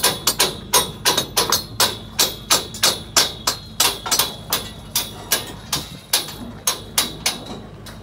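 Rapid metal hammer blows on steel scaffold tubes and couplers, about four or five a second, each with a short metallic ring, as the scaffolding is knocked together.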